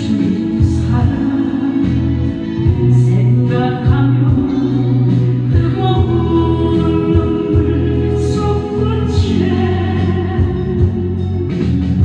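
A woman singing a Korean gospel praise song into a handheld microphone, holding long notes over instrumental accompaniment.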